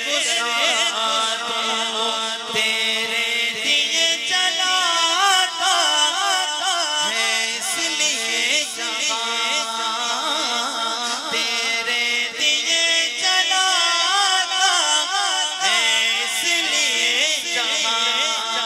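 A man's solo voice singing a Urdu manqabat in long, ornamented, wavering melodic runs, with steady held notes underneath.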